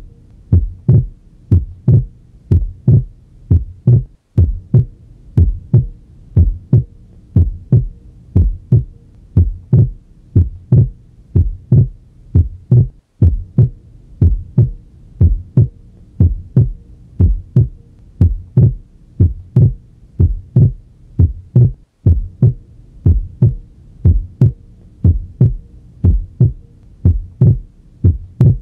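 Heart sounds heard through a stethoscope at the pulmonic area: a steady, regular lub-dub. On inspiration the second sound (S2) splits into aortic and pulmonary closures a few hundredths of a second apart, and on expiration it merges back into a single sound, a normal physiological split S2. The sound cuts out briefly three times.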